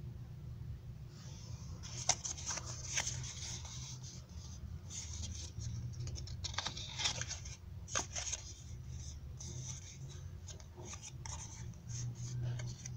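Origami paper rustling and crinkling as fingers press and flex a folded paper cat, in irregular crackles and short rustles starting about a second in. A steady low hum runs underneath.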